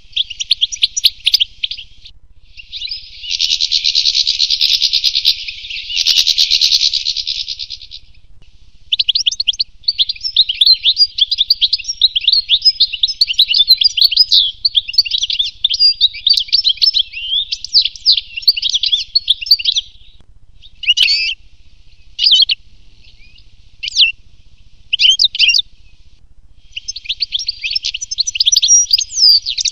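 European goldfinch singing: long runs of fast, liquid twittering and trills in phrases broken by short pauses. About two-thirds of the way through the song breaks into a few separate short calls before the twittering resumes near the end.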